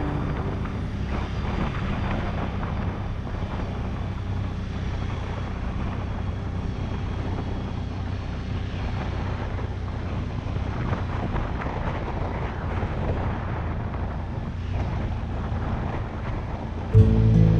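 ATV engine running steadily at cruising speed on a grass trail, with wind noise on the microphone. Guitar music cuts in right at the end.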